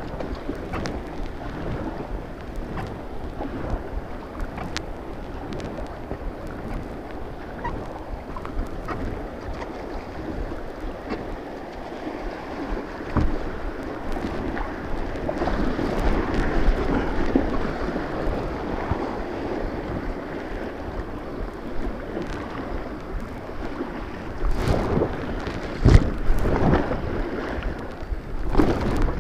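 Kayak paddling through white water: a steady rush of moving river water with paddle splashes, fuller a little before halfway, and a few loud splashes or knocks near the end.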